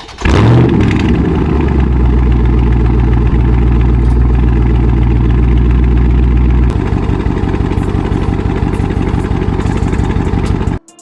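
2020 Dodge Charger Scat Pack's 6.4-litre HEMI V8 running through Carven 5-inch exhaust tips. It starts abruptly with a brief rise in pitch and runs loud and steady for about six seconds. Then the deep drone drops into a choppier, pulsing idle that cuts off suddenly near the end.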